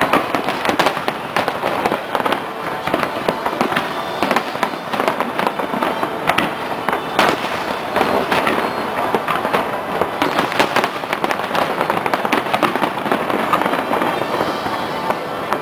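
Fireworks display: a dense, continuous string of bangs and crackles, many reports a second, with no let-up.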